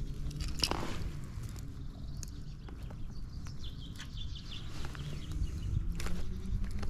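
Close handling noises from unhooking a rainbow trout in a rubber-meshed landing net: scattered clicks and rustles, with a sharper click just under a second in, over a low rumble.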